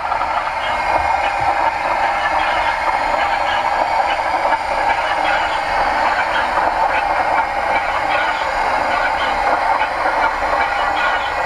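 OO gauge model train running along the track: a steady running noise with scattered light clicks from the wheels on the rails.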